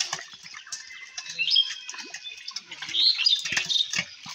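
Small birds chirping and twittering in quick, high calls, with a few short knocks near the end.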